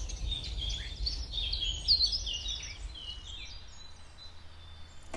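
Songbirds chirping and singing in quick short notes over a low steady rumble; the birdsong thins out about three and a half seconds in.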